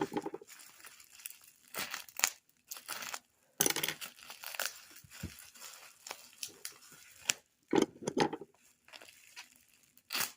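Packing wrap rustling and crinkling in irregular bursts, with some tearing, as glass vases are unwrapped from their packaging by hand.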